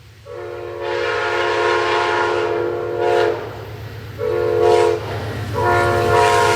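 Amtrak locomotive chord horn sounding a long blast, a short blast, then another long blast that is held on. This is the grade-crossing signal. Beneath it is the growing rumble of the approaching train.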